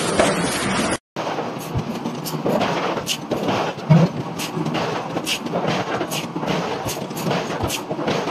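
Forge-shop din of a forging hammer working a glowing-hot steel billet, with sharp, irregular metallic knocks over a steady background noise, starting after a short break about a second in.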